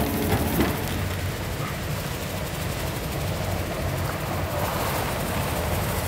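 Sasara snow-sweeping streetcar running along the tracks, its rotating bamboo brooms sweeping snow off the rails: a steady low rumble with a rushing hiss, a little louder in the first second.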